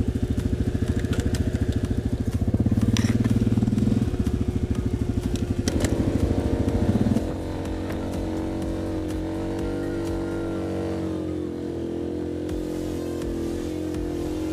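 ATV engine running close by with a fast pulsing beat, revving up twice. About seven seconds in it drops to a quieter, smoother steady drone.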